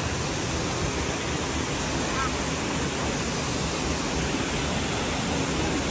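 Steady rushing roar of a waterfall plunging onto rocks, an even noise with no change in level.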